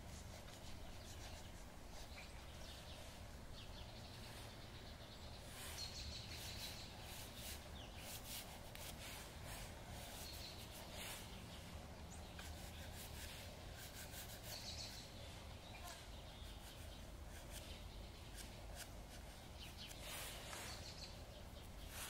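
Dry pastel scratching and rubbing across sketchbook paper in short bursts of strokes, with a bird chirping faintly a few times.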